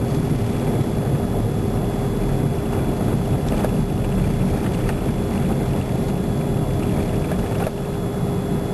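A car driving, heard from inside the cabin: a steady low rumble of engine and road noise with a constant hum held at one pitch and a few faint ticks.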